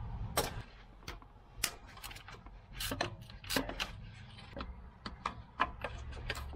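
Irregular sharp metallic clicks and clinks of a wrench turning a 12 mm bolt loose on an engine-mount bracket, about fifteen over the stretch, over a low steady hum.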